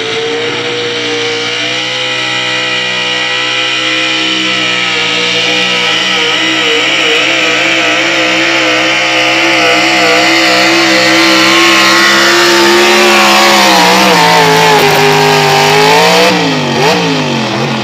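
Pulling vehicle's engine held at high revs under heavy load as it drags a weight-transfer sled down the track. Its pitch drops about three-quarters of the way through and wavers up and down near the end.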